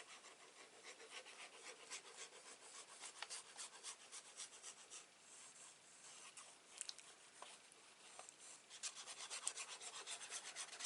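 Tip of a liquid glue bottle rubbed back and forth across cardstock, spreading wet glue: faint, scratchy strokes that come faster and closer together near the end.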